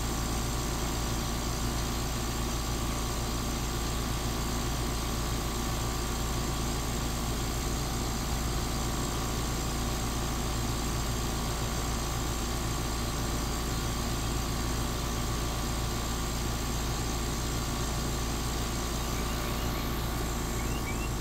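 Trane air conditioner running with a steady, even hum and no popping: the unit has settled into normal running after its cycling.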